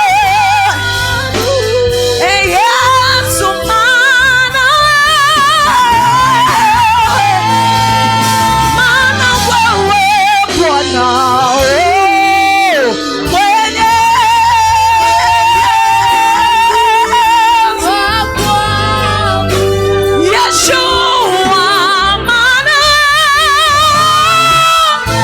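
Live gospel worship music: a voice holding long notes with vibrato, over backing instruments with a steady low bass.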